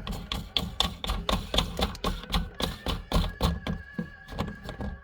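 Quick, irregular clicks and knocks of hand tools and faucet fittings being handled and worked loose under a kitchen sink.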